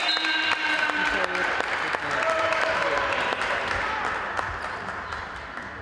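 Spectators clapping and cheering with shouted voices in a large sports hall, fading over the last couple of seconds.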